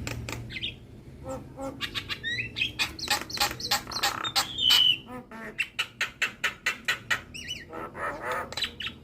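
Javan myna (jalak kebo) singing a fast run of clicking, chattering notes mixed with short whistles, with one louder whistled note about halfway through.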